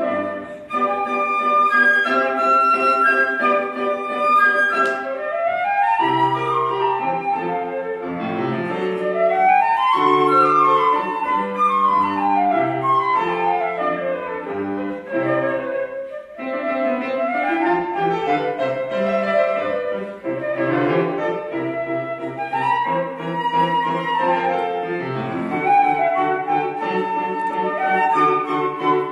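Concert flute and grand piano playing a Baroque duet, the flute carrying the melody in quick rising and falling runs over the piano's accompaniment.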